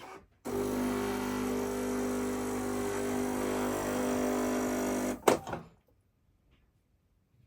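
Miele CM6300 bean-to-cup coffee machine running a steady motor hum for about five seconds after a coffee is selected, then stopping with a sharp click. No grinding is heard, because the grinder's temperature sensor/fuse has blown.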